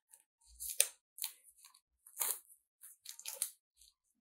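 Clear plastic shrink wrap crinkling and tearing as fingers peel it off a small cardboard box, in several short crackles about a second apart.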